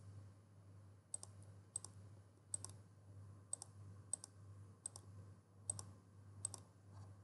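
Computer mouse clicking about eight times, roughly one click every three-quarters of a second, each click placing another point of a line traced on a map. A faint steady low hum runs underneath.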